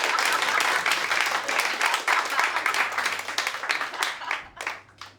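Audience applauding a stand-up joke, a dense patter of many hands clapping that dies away about four to five seconds in.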